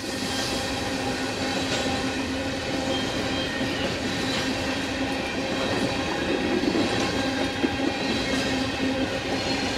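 A train running along the track: a steady rumble and rail noise with a few held tones running through it.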